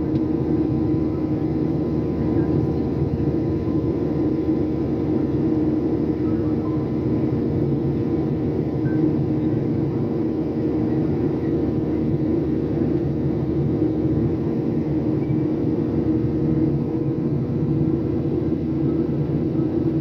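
Steady cabin drone of a Boeing 737 airliner in flight, heard inside the cabin by the wing: engine hum with a few held tones over a rush of airflow.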